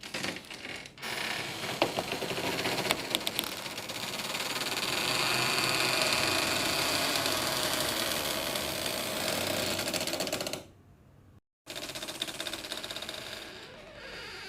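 Horror door sound effect: a click, then a long creaking, rattling door sound that cuts off suddenly, followed after a moment's silence by another rattling creak.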